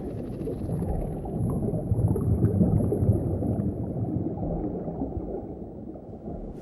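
Low, muffled water gurgling and bubbling, like sound heard underwater, growing quieter toward the end.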